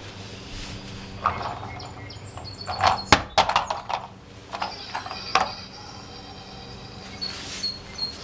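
A string of knocks and clunks as a plastic toy truck is picked up and set back down on a tile-topped table, with footsteps; the loudest clatter comes about three seconds in. Thin high ringing tones sound between the knocks.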